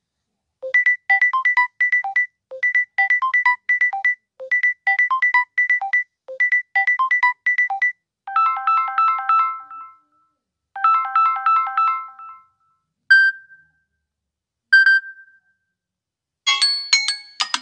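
Samsung Galaxy A32 ringtones played one after another: a fast repeating pattern of short, high electronic notes for about seven seconds, then two short runs of repeated chimed chords, two single notes, and the start of another tune near the end.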